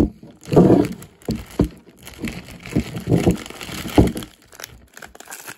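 Plastic packets of frozen fishing bait being handled: crinkling and rustling plastic, broken by several sharp knocks.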